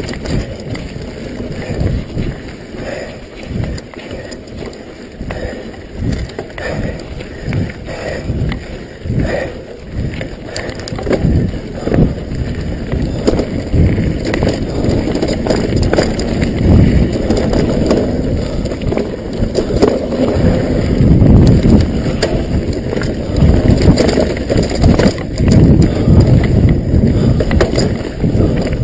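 Mountain bike riding fast down a dirt trail: a steady low rumble of wind on the microphone and tyres over dirt, with frequent knocks and rattles from bumps. It gets louder from about the middle on.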